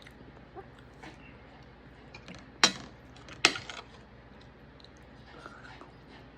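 Cutlery on a plate: two sharp clinks less than a second apart, with faint small clicks and knocks around them.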